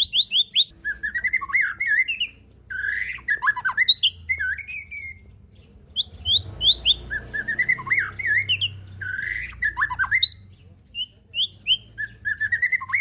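Kept songbird singing loud, rapid phrases of quick whistled and chattering notes, each phrase repeated every few seconds with short pauses between.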